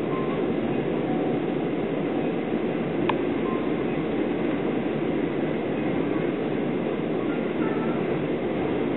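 Steady rumble of a 25Z passenger coach running along the track, heard from inside the carriage. A single short click comes about three seconds in.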